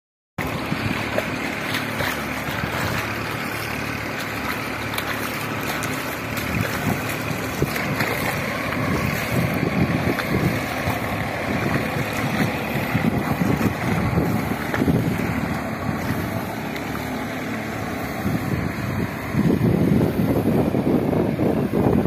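Wind buffeting the microphone in steady gusts, over the distant drone of a Massey Ferguson 241 tractor's diesel engine working a flooded paddy with a rotavator. The wind grows louder near the end.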